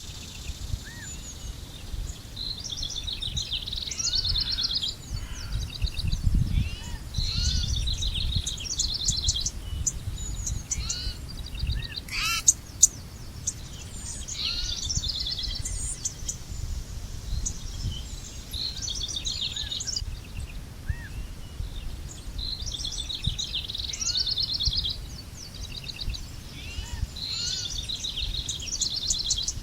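Wild birds singing outdoors: rapid high trilled phrases repeated every few seconds, mixed with short, lower chirps. A low rumble swells about six seconds in, and a couple of sharp clicks come near the middle.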